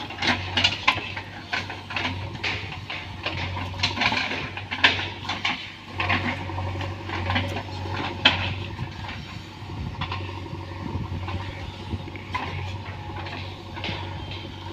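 JCB backhoe loader's diesel engine running with a steady low hum, under frequent sharp metallic clanks and knocks that come thickest in the first half.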